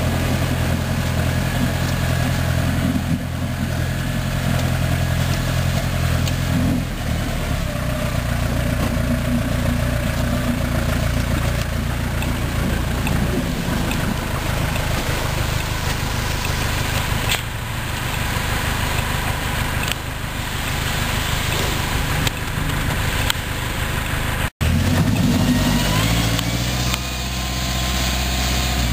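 Diesel engine of a winter-service gritting truck running close by with a steady drone. Near the end the engine pitch rises in steps as the truck pulls away.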